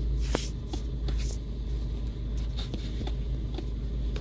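Steady low rumble of a Toyota car running, heard inside the cabin. A few light knocks and rustles come from a phone being handled.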